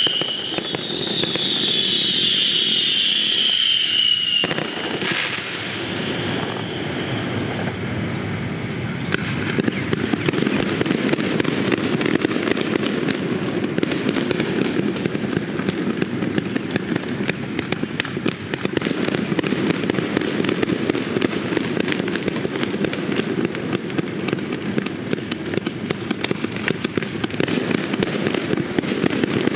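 Fireworks: a whistling shell with a falling whistle, then dense, continuous crackling and popping over a low rumble of bursts.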